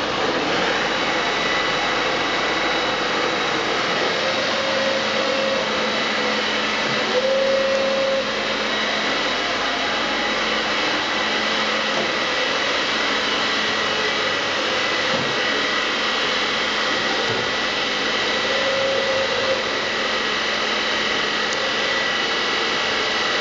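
Anayak VH 1800 CNC bed milling machine running: a steady motor hum and whine with high steady tones. Short, slightly louder whines come and go three times, around 5, 7 and 19 seconds in.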